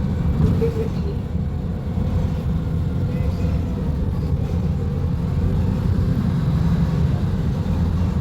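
Diesel engine of a Volvo B290RLE city bus running with a steady low drone, swelling slightly in loudness partway through.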